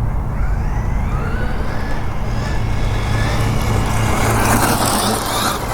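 Losi 6IX RC car's brushless electric motor whining as it accelerates, the whine rising in pitch about a second in, then a rush of tyre and drivetrain noise near the end as the car slides on cold tyres.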